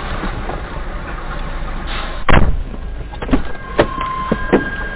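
Steady vehicle noise from a car, with one loud knock about two seconds in and a few lighter clicks after it. A steady electronic tone comes in near the end.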